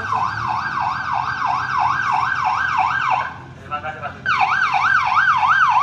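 Police car siren yelping, its pitch sweeping rapidly up and down about three times a second. It breaks off about three seconds in for a second, then starts again.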